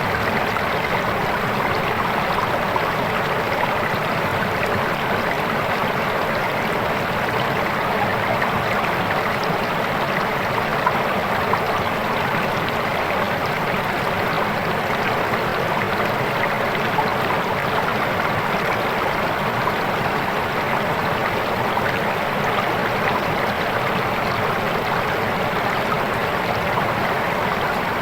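Swift river water flowing and rushing steadily, a constant even wash of sound.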